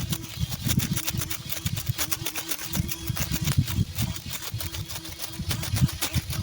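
Electric lawn mower cutting weeds and brush: a steady motor hum with a rapid, irregular crackle of ticks and low thuds as stems and debris are struck.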